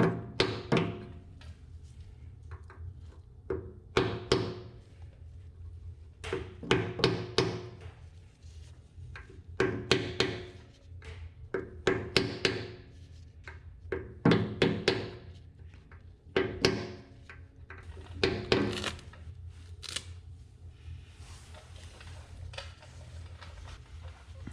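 Hammer blows on metal in quick groups of a few strikes every two or three seconds, each with a short metallic ring, tapping the new rear axle seal of a Kubota B7100 into place. The strikes stop a few seconds before the end, leaving a low steady hum.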